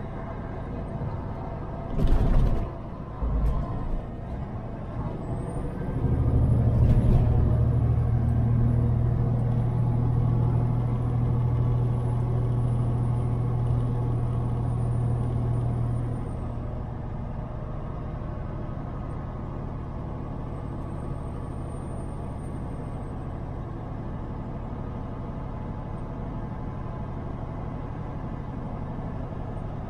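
Semi truck's diesel engine and road noise while driving. Two brief thumps come about two seconds in. From about six seconds the engine drones louder for some ten seconds, with a faint high whine over it, then settles back to a steady running sound.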